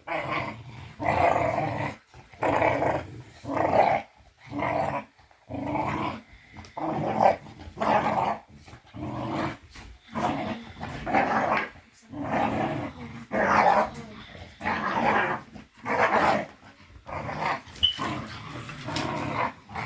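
Puppies growling in short repeated bursts, about one a second, as they tug and wrestle over a rope.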